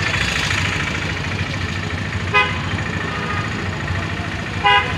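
Street traffic running steadily, with two short vehicle horn toots, one about two seconds in and another near the end.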